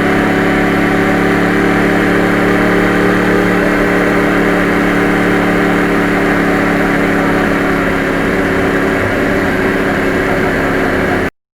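Engine of a 2009 Yamaha R1 crossplane inline-four sportbike running at steady revs while riding. It cuts off suddenly near the end.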